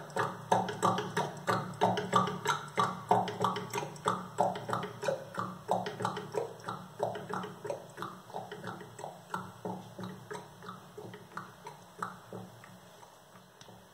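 A donkey's hooves clip-clopping at a walk, about three steps a second, fading away gradually. A steady low hum runs underneath.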